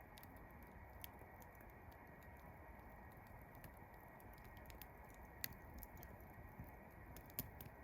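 Faint crackling of a wood campfire: scattered small pops and snaps over a low steady hiss.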